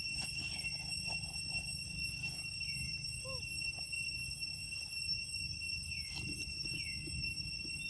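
Steady high-pitched drone of insects, several even tones held at once over a low background hum, with a few short chirps.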